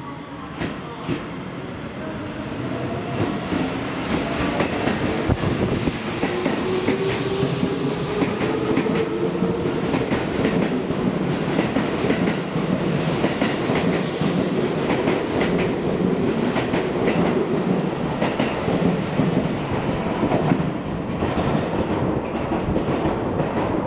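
Seibu 20000-series electric commuter train pulling away, its Hitachi IGBT-VVVF inverter motors whining with a pitch that rises as it gathers speed. Its wheels then clack over rail joints in a steady rhythm as the cars pass close, easing slightly near the end.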